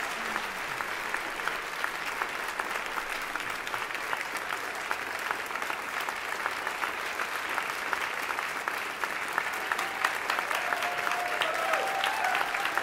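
Theatre audience applauding, a dense clatter of many hands clapping that grows a little louder and sharper near the end.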